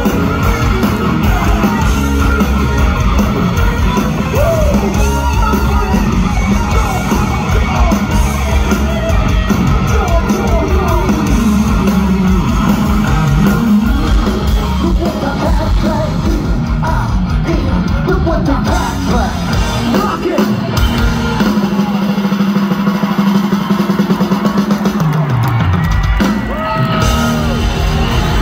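Live rock band playing loud through a concert PA, with drums and a singer singing and yelling. About three quarters of the way in the low end and drums drop out for a few seconds under one held note, then the full band comes back in.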